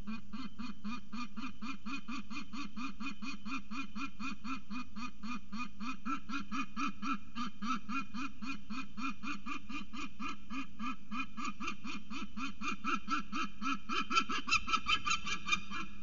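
Juvenile peregrine falcon calling over and over, about four honking calls a second, growing louder in the last two seconds and then stopping abruptly. A steady low hum runs underneath.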